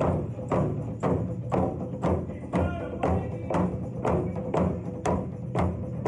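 Large rawhide-headed powwow drum struck in unison by several seated drummers with padded sticks, in a steady beat of about two strikes a second.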